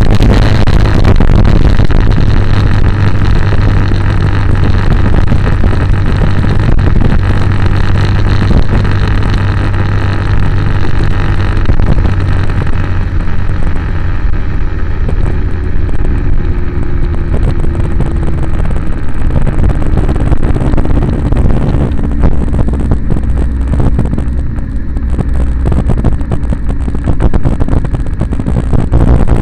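Road vehicle engine running while driving, mixed with heavy wind rumble on the microphone. The engine note eases down slightly about halfway through.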